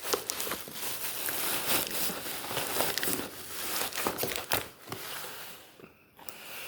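Plastic packaging crinkling and rustling as it is handled and fitted into a cardboard box, with scattered small knocks and clicks; it quietens about five seconds in.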